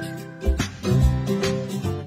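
Background music with a drum beat and sustained bass notes.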